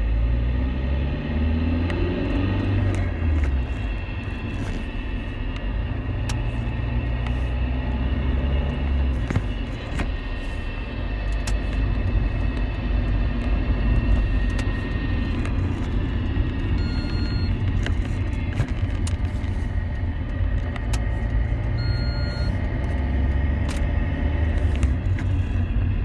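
2006 Alfa Romeo 1.9 JTDM four-cylinder turbodiesel driving: a low engine and road rumble, with engine pitch rising during the first few seconds as it accelerates, and a faint high whine over it. The owner suspects worn M32 gearbox bearings as the cause of the whine.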